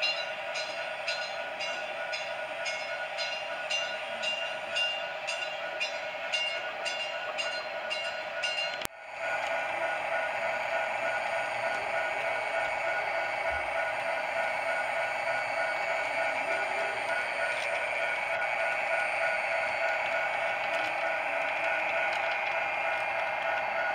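Model trains running on layout track: a steady electric motor hum with regular clicks, about two a second, as the wheels pass over rail joints. About nine seconds in, a sudden break is followed by a steadier, louder hum of a freight train rolling past close by.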